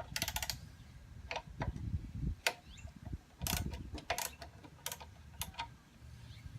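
Hand tool clicking on the nuts and bolts of a toy excavator as they are tightened: a quick run of rapid clicks right at the start, then single sharp clicks every half second to a second.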